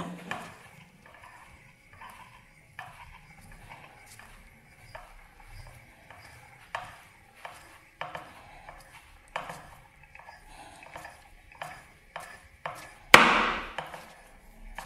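Hand-cranked polymer clay extruder being turned while braced against the table, forcing firm clay out through a heart-shaped disc. Its crank and metal parts give faint, irregular clicks and scrapes about once a second, with one louder scrape near the end.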